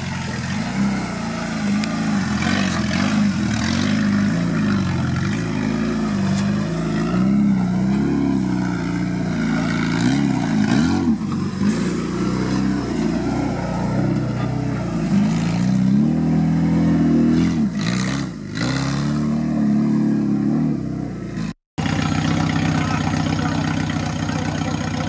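Suzuki Samurai 4x4's engine revving up and down under load as it climbs over dirt mounds, its pitch rising and falling again and again. The sound cuts out for an instant near the end.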